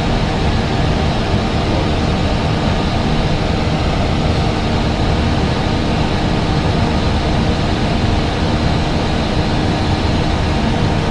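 Steady engine and airflow noise of an Airbus A320 airliner, heard from inside the aircraft: a constant rush with a faint even hum beneath it.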